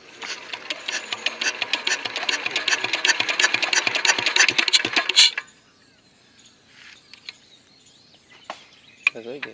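Single-cylinder Kirloskar diesel engine being hand-cranked fast: a rapid mechanical clatter that speeds up, then stops abruptly about five seconds in without the engine firing. The mechanic later puts the failure to start down to very low compression.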